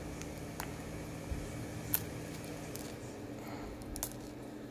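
Knife blade slitting the plastic shrink wrap on a CD sleeve: a few faint clicks and scratches, the clearest about two seconds in, over a steady low hum.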